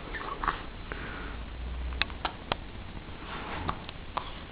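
A baby hiccuping softly, short breathy catches of breath, with a quick run of three light clicks about two seconds in.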